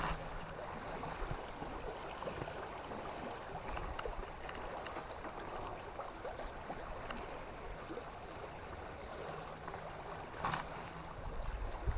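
River water running steadily, an even rush with small trickles and splashes, with one brief louder noise near the end.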